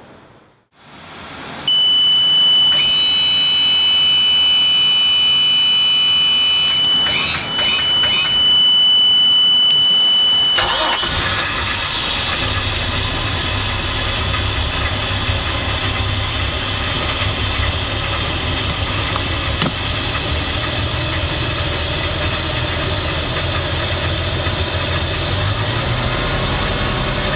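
A steady high-pitched warning buzzer sounds for about nine seconds while the Mercruiser 4.3 L V6 sterndrive engine is switched on and cranked. About ten seconds in the engine catches, the buzzer stops, and the engine settles into a steady idle.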